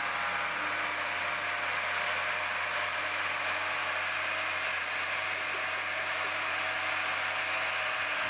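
A machine running steadily, giving a constant droning hum that holds even throughout.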